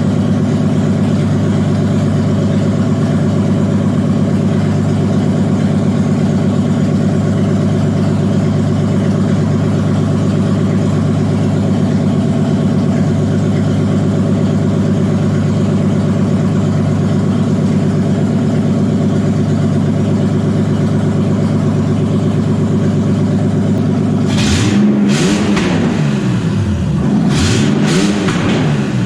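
Engine of a home-built articulated off-road machine running steadily at idle, then revved up and back down twice near the end.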